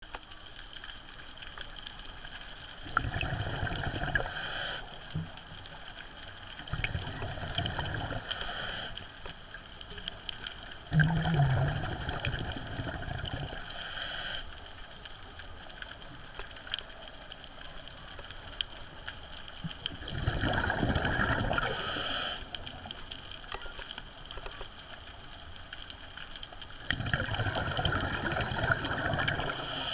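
Scuba diver breathing through a regulator underwater: five exhalations, each a rumbling gush of bubbles lasting one to three seconds, about every seven seconds. Most end in a short hiss from the regulator.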